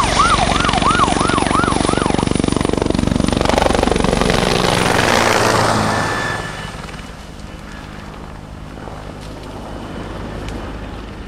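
Firefighting helicopter flying low overhead, its rotor beating loudly, with a siren yelping over it for the first two seconds or so. About six seconds in the rotor sound gives way to a much quieter steady background noise.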